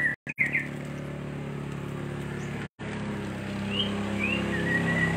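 Hot oil sizzling as fritters deep-fry, under a steady low motor hum that grows a little louder in the second half, with a few short bird chirps.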